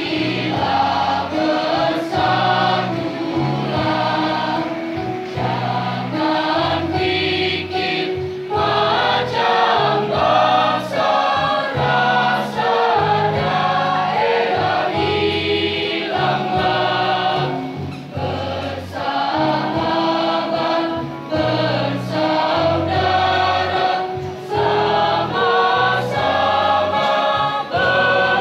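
Mixed high-school choir of boys and girls singing an Indonesian patriotic song into microphones, amplified through a PA system.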